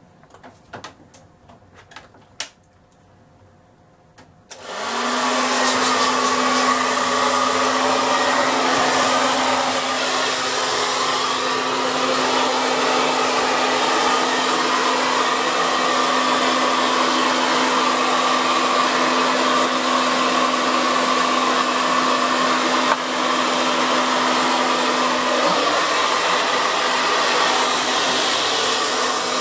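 A handheld hair dryer is switched on about four seconds in and then runs steadily, blowing air over a poodle's wet coat. Before it starts there are only a few faint clicks. The dryer's low hum drops out a few seconds before the end while the rush of air carries on.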